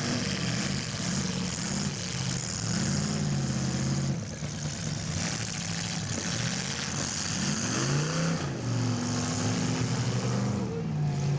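Engines of several full-size demolition derby cars revving, their pitches rising and falling over one another throughout.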